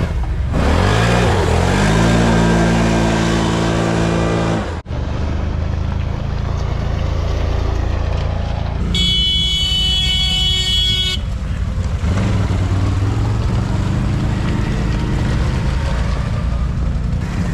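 ATV engines running hard, revving up with rising pitch over the first few seconds, then breaking off abruptly, then continuing as steady engine noise. A steady high tone sounds for about two seconds midway.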